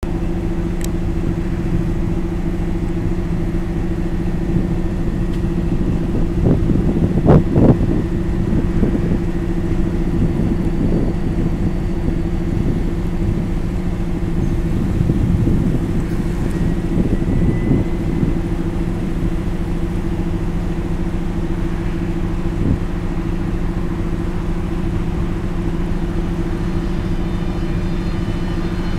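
SU42 diesel locomotive's engine idling steadily, a low even drone. A few brief louder knocks come around seven seconds in.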